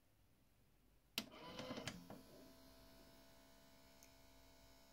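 A sharp click, then a brief mechanical whir from the DVD loader of an LG DVC5930 DVD/VHS recorder, lasting under a second, then a faint steady electrical hum. The DVD tray stays shut: the unit's loading fault.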